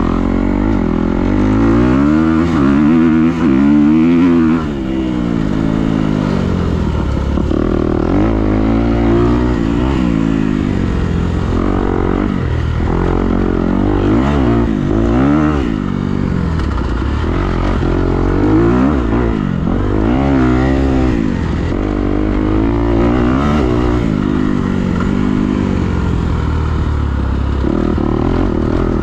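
A vehicle engine running under changing throttle, its pitch rising and falling over and over as it speeds up and eases off, over a steady low rumble.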